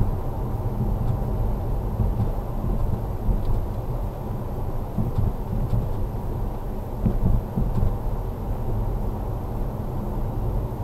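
Car cabin noise picked up by a windscreen dashcam while driving: a steady low rumble of engine and tyres on the road, with a few brief louder bumps and faint clicks.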